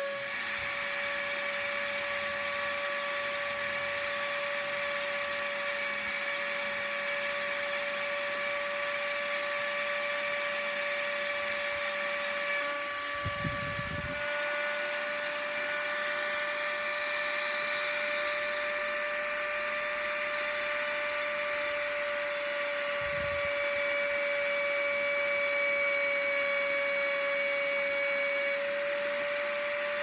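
Rotary multi-tool motor running at a steady high whine, spinning brass rod in its chuck like a mini lathe while a file scrapes against it to turn a lock security pin. Two brief low thumps, one near the middle and one about three-quarters of the way through.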